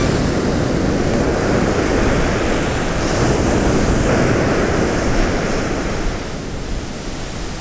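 Rough ocean surf breaking and washing up a sandy beach, a steady dense rush, with wind buffeting the microphone.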